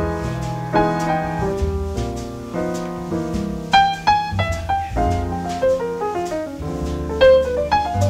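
Background piano music: a light melody of single struck notes, with a run of falling notes about five to six and a half seconds in.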